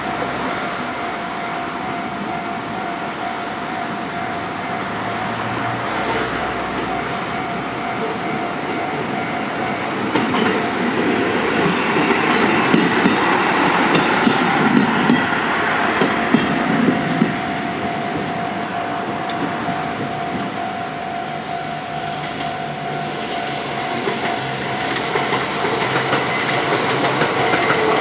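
JR Central KiHa 11 diesel railcar passing over a level crossing, with wheel clatter on the rails loudest from about ten to seventeen seconds in. A steady ringing tone, the crossing's warning bell, sounds throughout.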